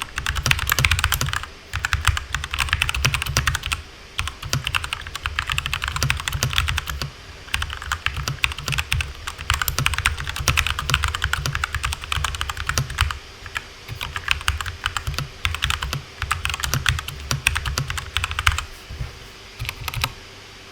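Keychron K2 V2 mechanical keyboard with Gateron Red linear switches being typed on fast: runs of rapid keystrokes broken by short pauses every few seconds.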